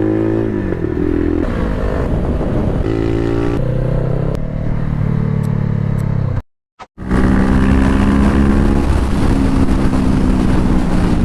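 Honda CBR500R's 471 cc parallel-twin engine running under way, its pitch stepping up and down several times. The sound cuts out briefly a little past six seconds in, then the engine holds a steady note.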